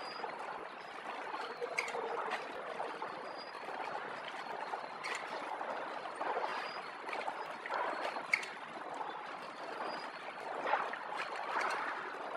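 Pillow-type horizontal flow-wrapping machine running with a steady hiss and scattered sharp clicks, while plastic film wrap rustles as wrapped buns are handled.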